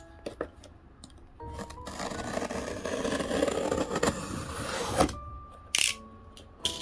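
Album packaging being handled: a few seconds of scraping and rustling, then several sharp clicks and taps, over soft background music.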